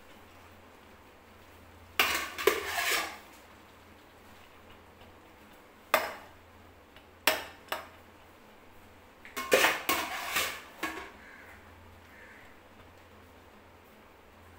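A steel spoon clanking and scraping against a metal cooking pot as cooked rice is turned and mixed into chicken biryani masala. The sound comes in short clusters of knocks and scrapes, with quiet gaps between them.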